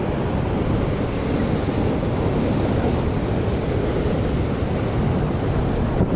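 Rough surf breaking and churning over shoreline rocks: a steady rushing noise, with wind buffeting the action camera's microphone.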